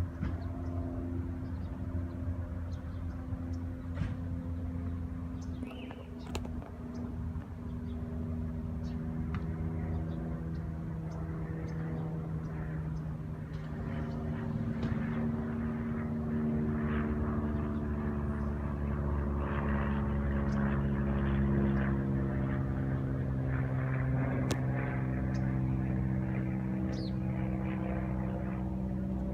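A motor engine running steadily, a low hum that grows louder through the middle and whose pitch shifts slowly, with a few short high chirps over it.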